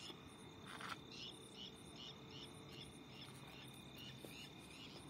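Faint night insects chirping in a regular rhythm of about three short high chirps a second over a steady high trill, with one brief knock about a second in.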